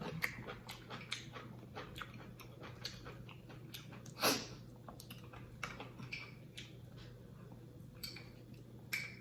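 Close-miked mouth noises of eating: chewing and wet lip smacking as a quick run of small clicks, with one louder smack about four seconds in.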